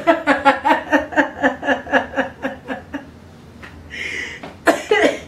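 A woman laughing hard: a quick run of pitched 'ha' pulses, about five a second, for roughly three seconds, then a breathy gasp near the end.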